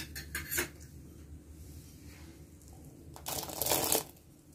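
Soaked sago pearls pushed by hand out of a glass bowl and dropping into a steel pot of hot, thickened milk: a short wet, squishy spell about three seconds in, after a quiet stretch.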